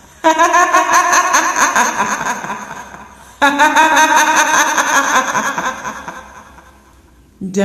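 High-pitched cackling woman's laugh in the manner of a kuntilanak ghost, in two bursts that each fade away over about three seconds; just before the end a steady droning chant-like voice starts.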